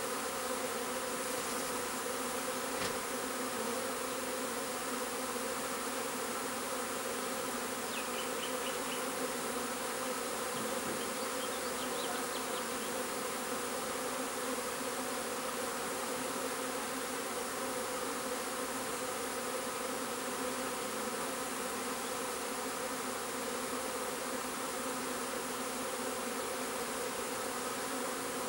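A honeybee swarm humming steadily as the bees cluster on and move into a swarm trap.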